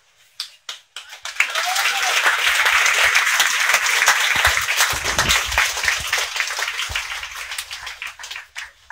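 Audience applauding: a few scattered claps, then full applause for several seconds that thins out near the end.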